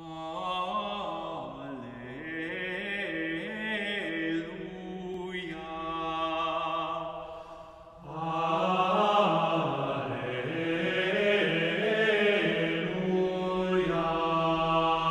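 Men's vocal ensemble singing slow, sustained chant-like sacred music in several parts. One phrase fades out about eight seconds in, and a fuller, louder phrase follows.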